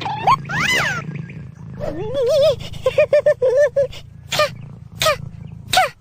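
Cat meowing and trilling in a series of short wavering calls, with a quick trill in the middle and three short meows near the end.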